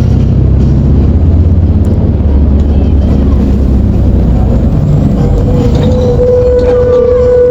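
Mercedes-Benz OF-1721 bus's OM924LA four-cylinder diesel engine running with a loud, steady low rumble. A steady high tone joins for the last two seconds or so.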